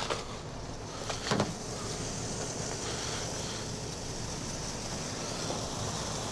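Steady roadside background noise with no speech, and one short knock about a second in.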